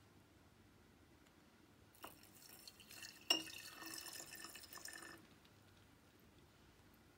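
Crude benzene distillate poured from a glass vessel onto calcium chloride granules in a glass Erlenmeyer flask: a trickle and splash of liquid for about three seconds, starting about two seconds in, with a sharp ringing clink early in the pour.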